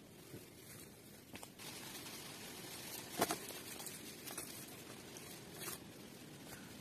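Sticks being handled and laid into a small fire lay on wet ground, with a few sharp cracks and knocks of wood, the loudest about three seconds in.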